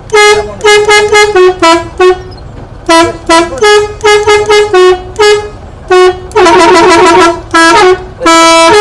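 Telolet horn, an Indonesian musical multi-tone bus horn, played as a loud tune of short toots at several pitches, with a warbling trill about six seconds in and a longer held note near the end.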